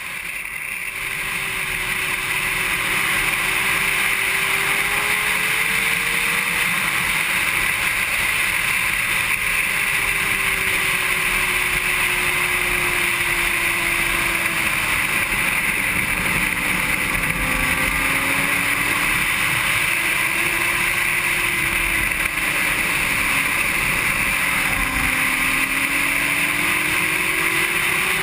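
Honda CBR600RR inline-four sport bike engine at speed on a racetrack, its note gliding up and down under a steady rush of wind over the helmet or bike-mounted camera.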